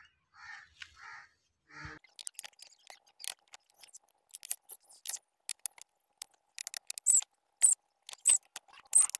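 A few soft rustly scrapes, then a thin plastic sheet being handled, crinkling in irregular sharp crackles that grow louder near the end.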